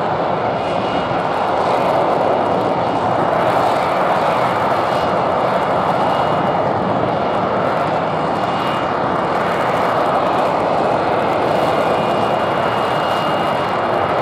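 An F-35B Lightning hovering, its jet engine and lift fan giving a steady, loud roar with a faint high whine that comes and goes above it.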